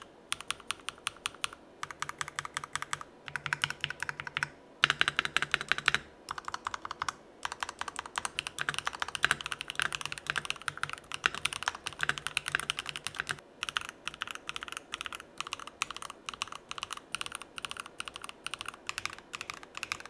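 Typing on an ASUS ROG Strix Scope II 96 mechanical keyboard with factory-lubed ROG NX Snow linear switches and double-shot PBT keycaps: fast runs of keystrokes broken by short pauses.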